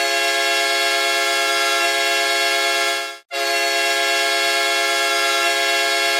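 New Jersey Titans hockey goal horn sounding two long, steady blasts of about three seconds each, with a short break between them about three seconds in.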